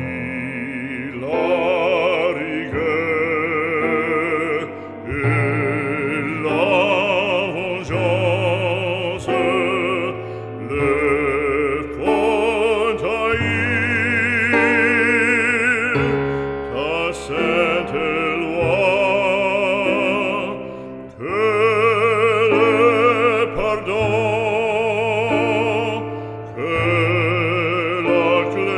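Background music: a classical, operatic-style singing voice with wide vibrato over instrumental accompaniment, sung in phrases a few seconds long.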